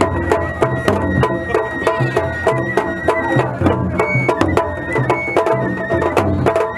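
Japanese festival music (matsuri-bayashi): the large taiko drum on a festival float beaten with sticks in a quick, steady rhythm, with a bamboo flute holding long high notes that step up and down over it.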